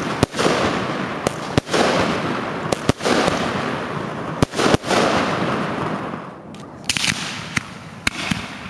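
Consumer fireworks going off: a sharp bang about every second and a half as silver aerial bursts break, over a dense hiss that dies away about six seconds in. A few lighter pops follow near the end.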